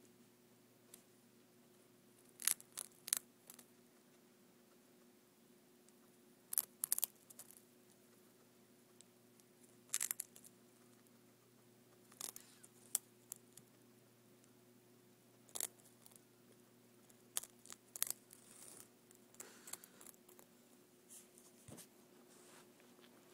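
Guinea pig biting into a crisp puffed-rice treat: short, sharp crunches in small clusters every few seconds, over a faint steady hum.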